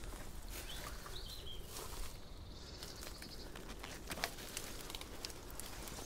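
Footsteps crunching over dry twigs and leaf litter, with scattered sharp snaps, while small birds chirp in the background.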